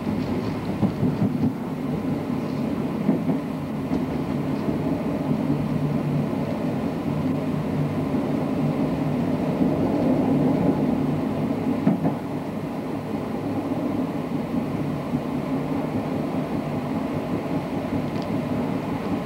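Running noise heard inside a moving passenger train carriage: a steady rumble of wheels on the track, with a few faint clicks.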